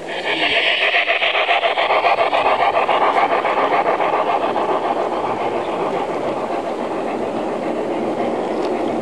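G-scale garden-railway freight train rolling past close by on a curve, its metal wheels making a rapid, even clatter on the rails.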